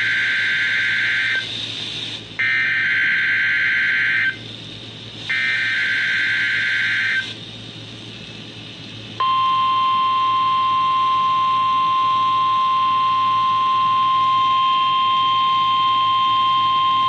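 NOAA Weather Radio alert signal for a required weekly test: three bursts of SAME digital header tones, each about two seconds long with about a second between them, then after a short pause the steady 1050 Hz warning alarm tone, beginning about nine seconds in.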